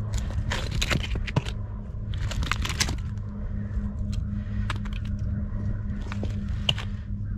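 Oyster shells and shell-crusted rocks clattering and clicking as a hand shifts them on an exposed oyster bar: two bursts of rattling in the first three seconds, then scattered single clicks, over a steady low hum.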